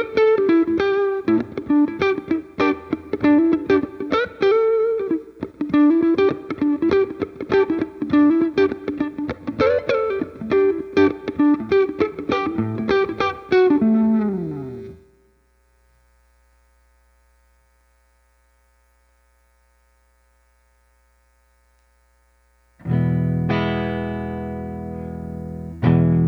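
Electric guitar played through a Line 6 POD HD300 amp modeler and recorded direct. A fast single-note melodic run lasts about fifteen seconds and ends in a downward slide. After a pause of several seconds with only a faint hum, a chord rings out and decays, and it is struck again near the end.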